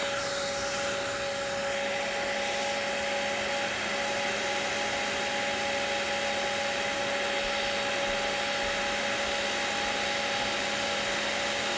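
Handheld blow dryer running steadily on its low setting, a rush of air with a steady humming whine, blowing hot air onto a phone's edge to soften the screen adhesive.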